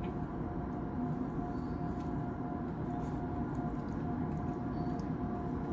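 Steady low background hum with a faint steady whine, and a few faint soft clicks.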